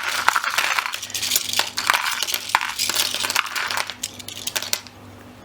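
Plastic pieces of a disassembled 4x4 Rubik's cube clicking and clattering against each other as they are handled and dropped together. A rapid run of sharp clicks that thins out after about four seconds.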